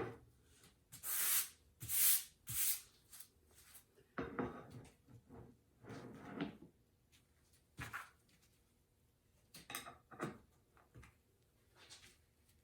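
A series of short scrapes and light knocks, like things being handled on a workbench: three quick scrapes in the first few seconds, then softer scrapes and a few small knocks.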